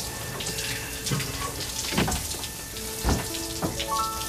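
Shower water running and splashing on a person and the floor of a shower stall.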